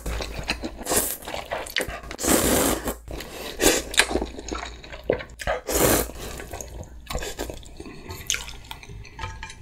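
Loud, wet slurps of glass noodles and broth from a bulgogi hot pot, coming irregularly about once a second or two.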